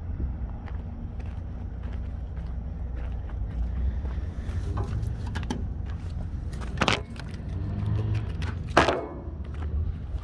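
International 7500 truck's diesel engine running with a steady low rumble, a cold start on an engine the owners believe has at least one bad injector. Two sharp, loud bangs come in the second half.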